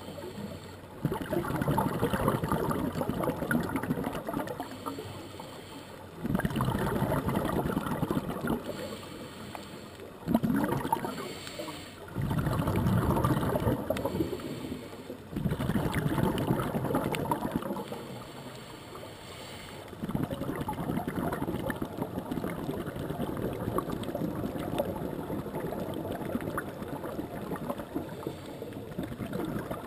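Scuba regulator breathing heard underwater: bubbling exhalations in noisy surges a few seconds long, with quieter gaps between them as the diver breathes in, and a steadier, softer bubbling over the last third.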